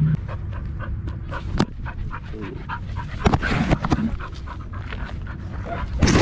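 A dog panting quickly and close to the microphone, with scattered knocks and rustles as it moves, and a loud burst of noise right at the end.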